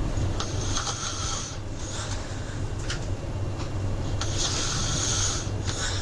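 A person snoring: two long, hissing snores about four seconds apart, over a steady low hum.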